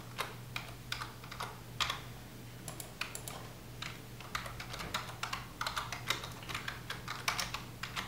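Computer keyboard being typed on: irregular runs of keystroke clicks over a steady low hum.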